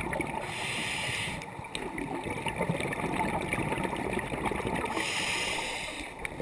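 Scuba diver's regulator breathing underwater: two inhalations, each a hiss lasting about a second, about four and a half seconds apart, with the gurgling rumble of exhaled bubbles between them.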